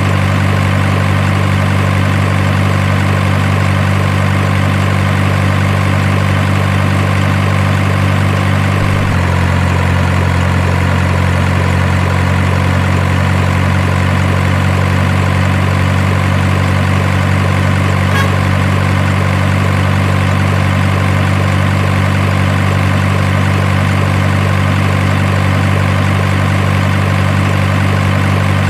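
Engine sound idling steadily, of the kind a radio-controlled model truck or excavator plays. It shifts slightly in tone about nine seconds in.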